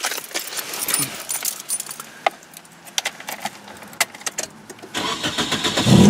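Keys jangling with scattered clicks and rustling, then from about five seconds in the Nissan Sentra's starter cranks and the engine catches right at the end: the first start on freshly installed battery terminals.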